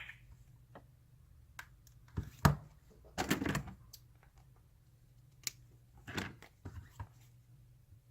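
Scattered clicks and taps of a thin plastic pry tool working at the edge of a heat-softened phone screen, hunting for a gap. There is a sharper tap about two and a half seconds in, a short scraping rustle just after, and another cluster of clicks near the end.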